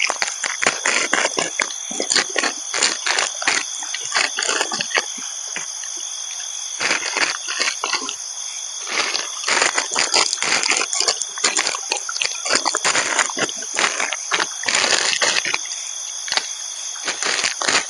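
Insects shrilling steadily in the forest at night, with frequent irregular close crackling and rustling over it.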